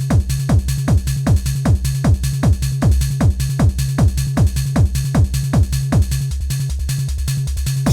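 Techno/trance dance music: a fast, steady four-to-the-floor beat with punchy kick drums that drop in pitch on each hit, over a pulsing bass line.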